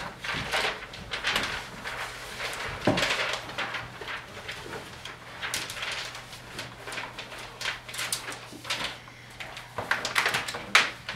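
Large paper plan sheets rustling and crinkling as they are handled and spread out, in irregular bursts over a steady low hum.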